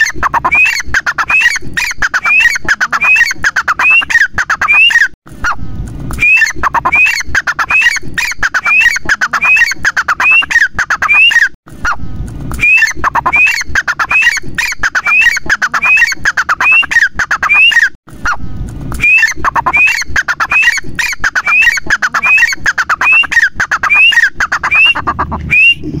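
Grey francolin (teetar) calling loudly: a fast series of shrill, rising notes, about two a second, in four bouts split by brief pauses.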